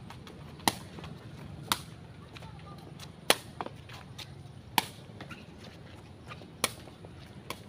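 Sepak takraw ball kicked back and forth between players, each touch a crisp smack, about six strong ones a second or so apart, with a few lighter touches between.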